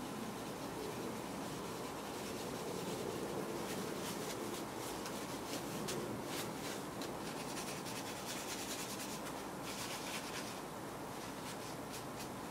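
A cloth rubbing in quick repeated strokes across the GPU cores of a Radeon HD 6990 graphics card, wiping off old thermal compound. The strokes come thickest through the middle of the stretch.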